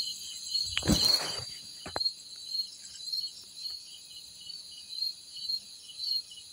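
Insects chirring steadily outdoors, a high continuous drone with a pulsing chirp about twice a second. About a second in there is a brief loud whoosh across the whole range, like a breath or gust on the microphone, then a faint click.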